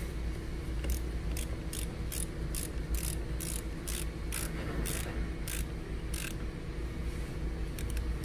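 Ratchet wrench with a 10 mm socket clicking as it tightens the nut on a car battery's positive terminal clamp. There are about a dozen strokes, roughly two a second, that slow and stop about six seconds in.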